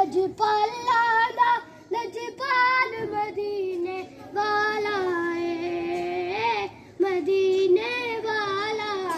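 A boy singing a naat solo with no accompaniment, in melodic phrases broken by short pauses, with a long held note around the middle.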